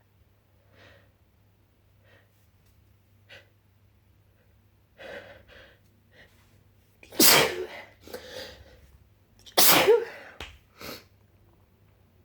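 A person sneezing twice, loudly, about two and a half seconds apart, as part of a sneezing fit. Short breaths come before the sneezes, and a softer sound follows each one.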